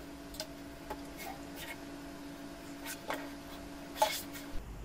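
Scattered light clicks and taps of metal and plastic from hands and a screwdriver working on a desktop computer case, over a faint steady hum. The loudest tap comes about four seconds in.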